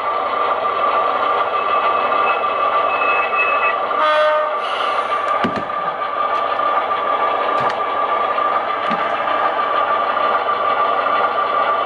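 Diesel locomotive engine sound from an HO scale model locomotive's sound decoder, droning steadily through its small speaker. A short horn blast about four seconds in, and a few light clicks.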